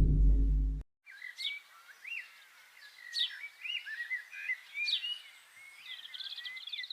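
A loud low rumble with a steady hum cuts off abruptly under a second in. Then comes birdsong: a series of short rising and falling whistles and chirps, ending in a rapid trill.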